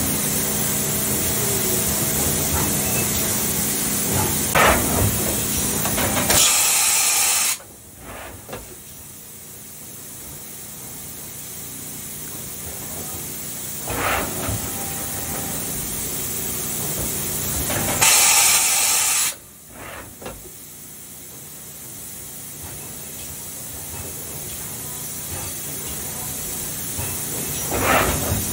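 Kitamura Mycenter HX300iF horizontal machining center running with a steady hiss of coolant spray. A louder rush of hiss comes about six seconds in and again about eighteen seconds in, each cutting off sharply, with a few single knocks between.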